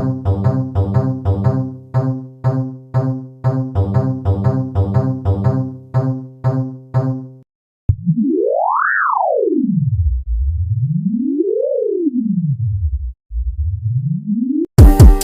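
Comedic cartoon sound effects. First comes a bouncy tune of short, evenly spaced keyboard-like notes, about two or three a second. It stops at about seven and a half seconds. Then a single pure tone slides up to a high pitch, down very low, up again, down again and starts rising, like a slide whistle or synth sweep.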